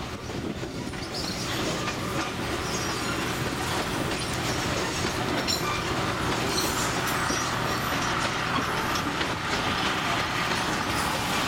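A narrow-gauge tourist train car rolling along the track, heard from its open deck: a steady running noise of wheels on rails, a little louder after the first couple of seconds.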